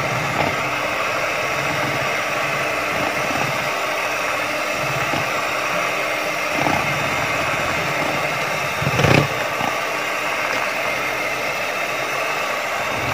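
Electric hand mixer running steadily, its beaters whirring through egg batter in a plastic bowl as oil is beaten in, with a brief knock about nine seconds in.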